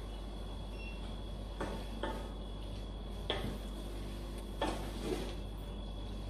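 Wooden spoon stirring leafy greens in a stainless steel frying pan, with about five soft knocks of the spoon against the pan over a faint steady hum.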